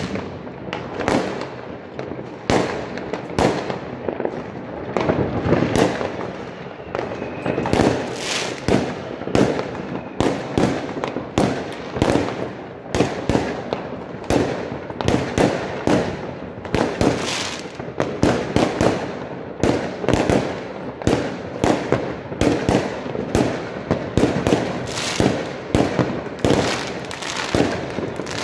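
Many fireworks and firecrackers going off at once: a dense run of overlapping bangs, several a second, with no let-up.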